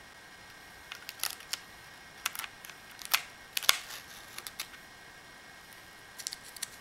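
Irregular small clicks and taps of hands handling laptop parts: the metal 2.5-inch drive bracket and the drive's flat ribbon cable and connector. The clicks come in a busy spell with two sharper ones in the middle, then a few more near the end.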